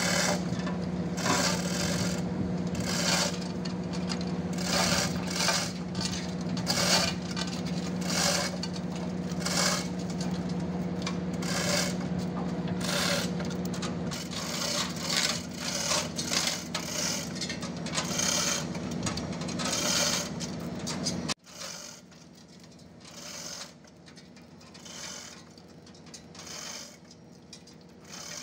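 Repeated scraping and rattling of metal as a heavy radiator hanging from hoist chains is shifted and worked loose by hand. A steady low machine hum runs underneath and cuts off abruptly about three-quarters of the way through.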